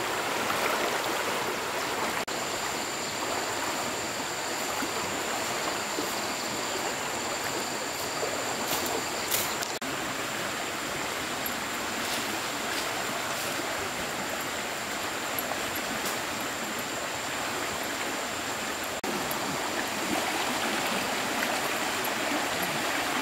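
Running water, a steady even rush like a stream, with a thin steady high-pitched tone above it and a few sharp clicks about nine seconds in.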